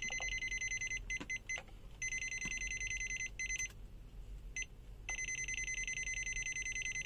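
UYIGAO UA10000 multimeter's non-contact voltage (NCV) alarm beeping as it senses voltage: a high, rapidly pulsing electronic beep that comes in three main stretches of one to two seconds and cuts out between them.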